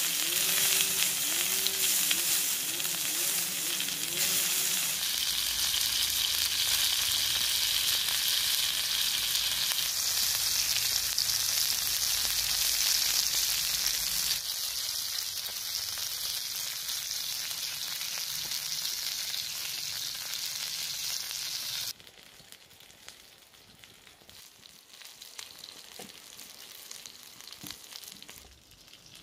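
Skewered coconut worms (palm weevil larvae) sizzling on a hot flat stone over a wood fire: a steady sizzle that drops off abruptly about two-thirds of the way through, leaving a much quieter hiss with a few faint clicks.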